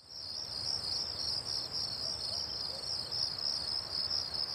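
Insect chorus: a steady, high, finely pulsing trill, with a faint low rumble of background noise beneath.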